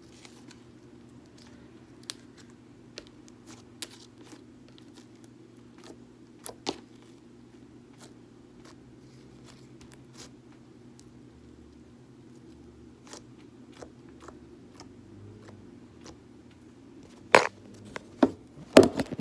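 Thick homemade slime being squished and poked by hand, giving scattered small clicks and pops, with a few louder snaps near the end. A low steady hum sits underneath.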